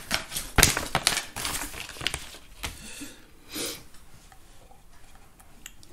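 Paper being handled: crinkly rustling and a few sharp clicks, dying down after about three seconds.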